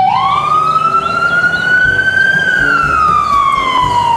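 Ambulance siren wailing: the pitch rises slowly for about two seconds, then slowly falls. Faint background music plays underneath.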